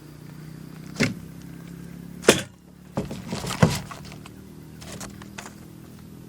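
Several sharp knocks and clatters, the loudest a little over two seconds in, over a low steady hum.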